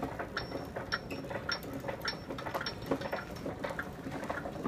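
The gravity generator's wheel and gearing running, ticking regularly about twice a second with a short metallic ring on each click, over a faint low rumble.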